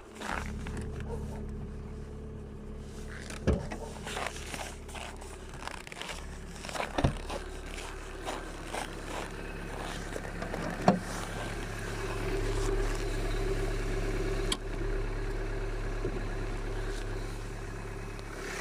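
Datsun on-DO car engine idling steadily, with a diesel-like knock that the owner puts down to the hydraulic lifters knocking in frost. A few sharp single clicks stand out over the hum.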